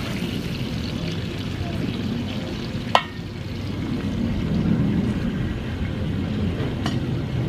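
Stingray pieces frying in butter in a large steel disco over a propane burner, stirred with a nylon slotted spoon, over a steady low rumble. The spoon knocks once sharply on the pan about three seconds in.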